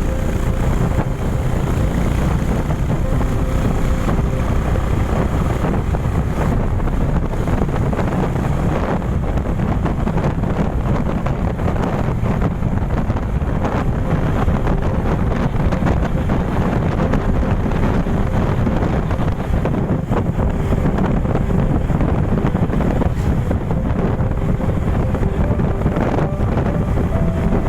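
Wind buffeting the microphone of a moving vehicle, a steady low rumble with engine noise beneath.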